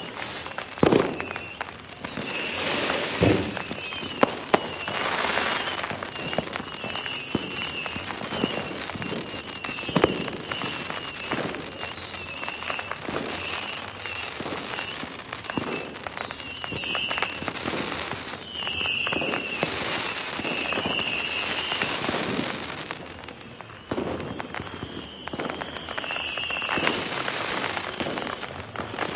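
Fireworks going off: a dense crackle with many sharp bangs, the loudest about a second in and about ten seconds in. A high wavering whistle comes and goes.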